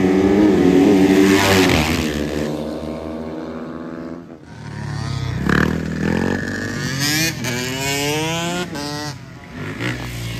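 Motorcycle engines running loudly at first, then revving up several times with rising pitch from about halfway through.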